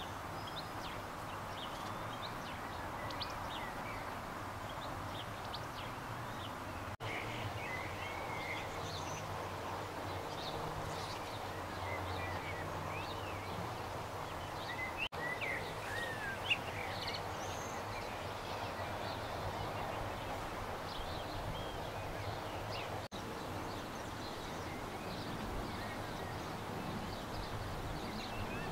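A cluster of honeybees humming steadily, with small birds chirping now and then. The sound cuts out for an instant three times.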